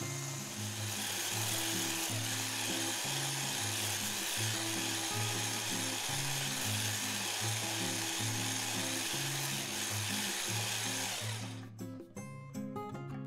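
Electric whisk motor running steadily as it whips cream toward stiff peaks, then cutting off suddenly about eleven and a half seconds in. Background guitar music plays underneath.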